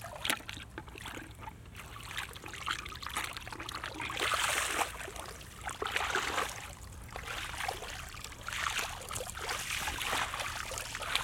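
Feet splashing through shallow floodwater over grass, an uneven run of watery splashes that is loudest around four to five seconds in.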